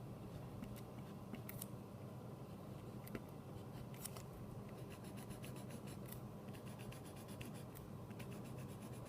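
Uni Shift mechanical pencil writing on paper: faint scratching of the lead with scattered light ticks and a quicker run of strokes in the later half, over a steady low hum.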